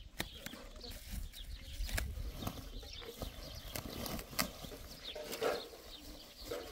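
Rubble and stone chips tipped from a sack, clattering onto a stone wall, with several sharp knocks of rock on rock.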